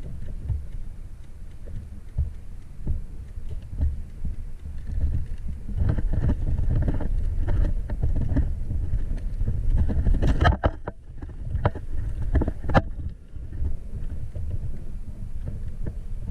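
Low rumble of wind buffeting the microphone, with rustling movement. A few sharp clicks or knocks come about ten to thirteen seconds in.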